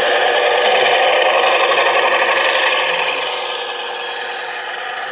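H0 model train running along three-rail track with the camera on board: a steady, close, rattling rolling noise from the wheels and motor. It is louder inside the tunnel and drops a little as the train comes out into the open about three to four seconds in.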